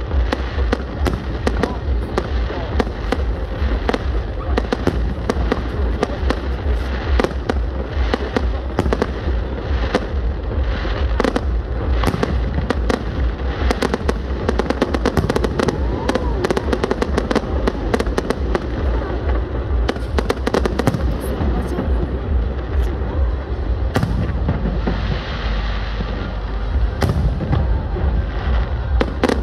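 Aerial fireworks display: shells bursting in rapid, overlapping bangs and crackles with a heavy low booming underneath, going on without a break.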